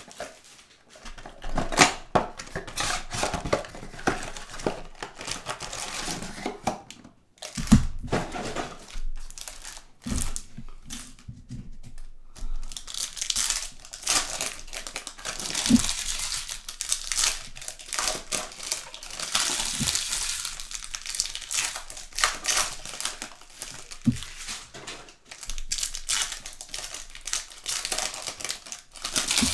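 Plastic trading-card pack wrappers and box wrapping being crinkled and torn open by hand, with scattered clicks and a sharp knock about a quarter of the way through.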